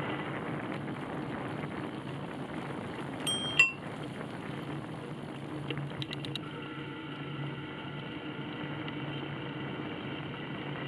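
A small bell rung twice in quick succession about a third of the way in, over a steady low hum from the moving ride. A few quick clicks follow a couple of seconds later.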